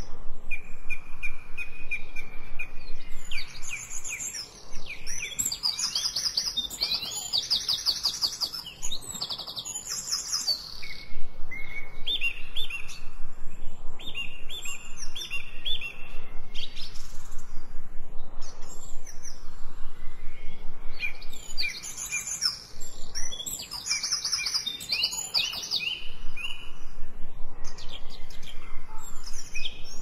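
Songbirds singing, several overlapping songs of rapid high trills and short whistled notes, coming in bouts with brief lulls.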